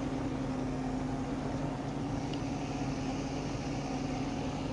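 Steady hum of an idling police patrol car, with two low tones held unchanged throughout.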